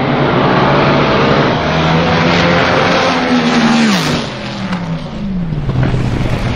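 Two nitromethane-burning AA/Fuel dragsters launching side by side at full throttle. About three and a half seconds in, the engines' pitch falls steadily as they pass and draw away down the track, and the sound drops off.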